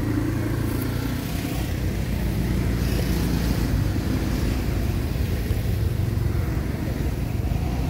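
Steady low rumble of a motor running, with a light hiss over it.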